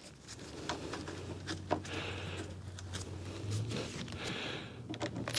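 Light clicks and taps of hands working a plastic tractor grille and setting its screws, over a faint steady low hum.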